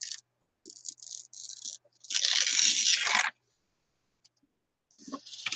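Old book-page paper being torn by hand: a few short rips, then one longer tear lasting just over a second about two seconds in, and a couple more brief rips near the end.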